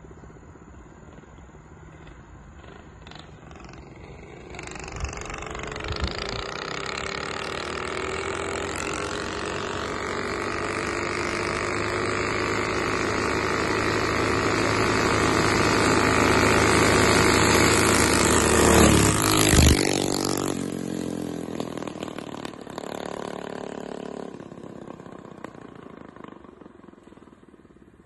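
Two minibikes with 6.5 hp Predator single-cylinder engines, a Rupp and a Coleman, running side by side under power as they approach. They grow steadily louder, pass close by about two-thirds of the way through with a sudden drop in pitch, and fade away.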